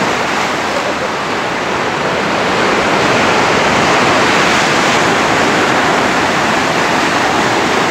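Surf breaking and washing over a rocky shore: a steady, loud rush of waves that swells slightly a little before the middle.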